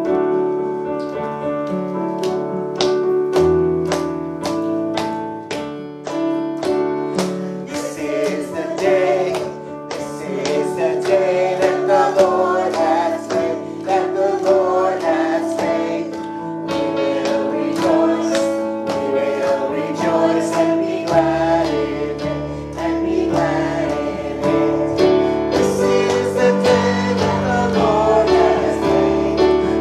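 Gospel worship song: a sung melody over instrumental backing with a steady beat, the voice coming in about eight seconds in after an instrumental opening.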